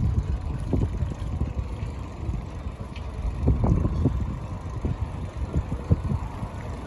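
Wind buffeting the microphone of a camera on a moving bicycle: an irregular low rumble with gusty swells, strongest about halfway through.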